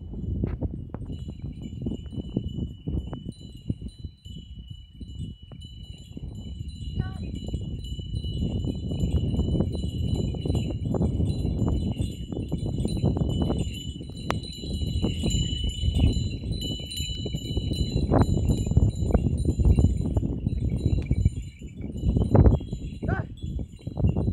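Small bells on working bullocks' neck straps jingling steadily as the pair walks, pulling a seed drill, over a low rumbling noise that swells and dips.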